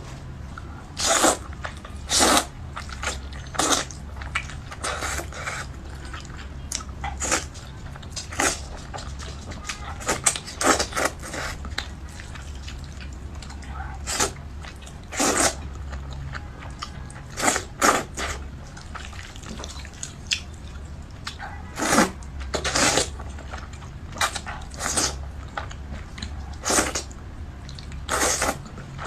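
Close-up eating sounds: irregular crunchy bites and chewing, with a louder bite every second or two, over a steady low hum.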